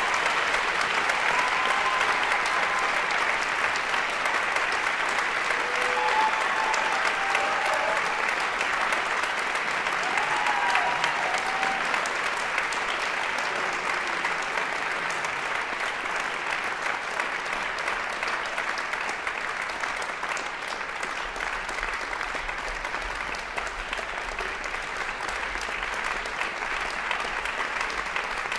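A concert-hall audience applauding steadily after a performance, the clapping easing off a little in the second half.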